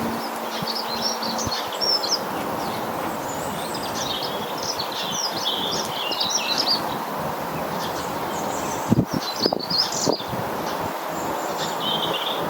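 Small garden birds chirping and twittering, with many short high calls throughout over a steady background rush, and a few sharp knocks about nine to ten seconds in.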